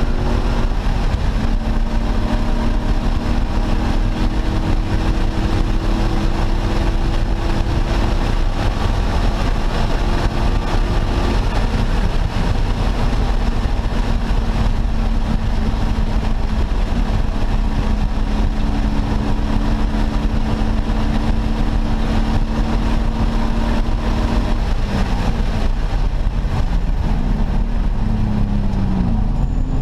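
A 1989 Ford Mustang Fox Body race car's engine pulling at high, nearly steady revs under a constant rush of road and wind noise. Its pitch holds almost level for long stretches, then swings up and down near the end as the revs change.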